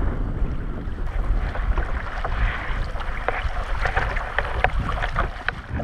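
Wind buffeting the microphone with a steady low rumble, and water lapping against the hull of a Hobie Compass fishing kayak on choppy water, with scattered short ticks through the middle.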